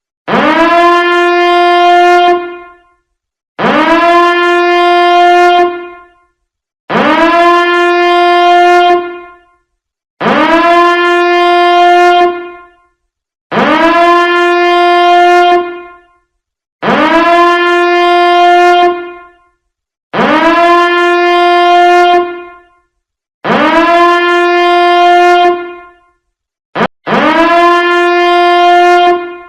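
Biohazard alarm sounding: a horn-like tone that swoops quickly up to a steady pitch, holds for about two seconds and fades, repeated about every three seconds, nine times in all. A brief blip comes just before the last blast.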